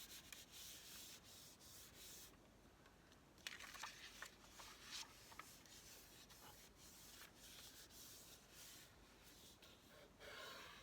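Faint rubbing and sliding of paper sheets being handled and lined up, with a few crisp crinkles or taps about four to five seconds in.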